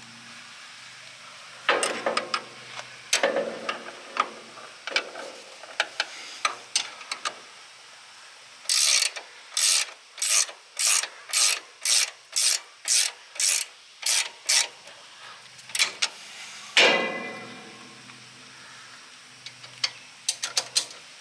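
Hand ratchet wrench clicking as nuts are snugged up: scattered clicks at first, then a steady run of about a dozen strokes at roughly two a second. A single sharp metal clank with a brief ring comes past the middle.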